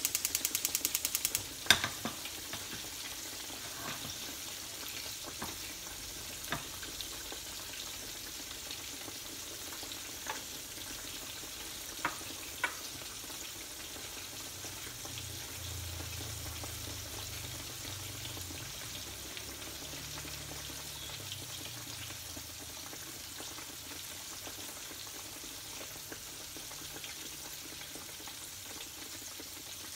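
Boneless milkfish (bangus) deep-frying in a pan of oil, a steady sizzle. A fast run of even clicking stops about a second and a half in, followed by a single sharp knock, and a few light clicks come later.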